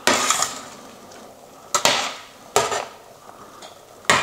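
A metal utensil clanks against a stainless steel saucepan of pasta four times, each knock ringing briefly.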